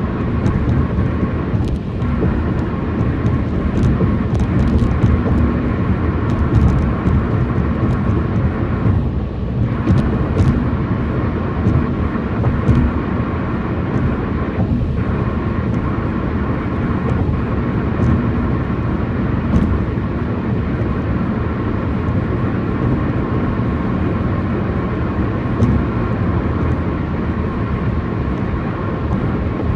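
Tyres of a car cruising on rough, aging concrete pavement: a loud, steady road roar with a faint buzzing tone running through it, the sign of a worn, noisy concrete surface.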